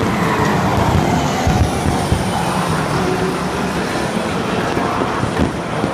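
Steady loud rumble of 2014 Formula One cars, 1.6-litre turbocharged V6 hybrids, running past on the circuit, with a few low thumps from fireworks bursting overhead.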